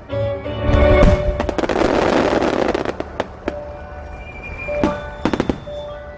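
Fireworks shells bursting over music from a synchronized show. A loud burst comes about a second in, followed by a couple of seconds of dense noise, then several sharp bangs in the second half.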